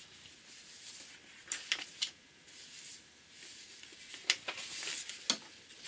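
Faint handling sounds of reading material: a few short, sharp taps and clicks, with a brief rustle near the end.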